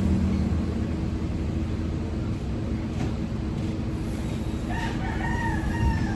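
A rooster crowing once, one long call starting about three-quarters of the way in, over a steady low hum.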